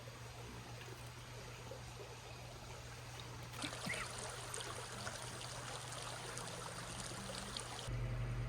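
Small stream trickling: a faint, steady rush of running water. Near the end a steady low hum takes over.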